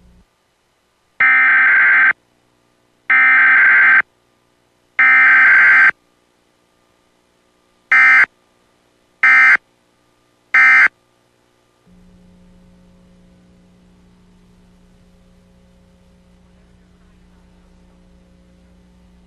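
Emergency Alert System digital data bursts (SAME codes): three loud header bursts of about a second each, then three short end-of-message bursts. After the bursts a faint low steady hum remains.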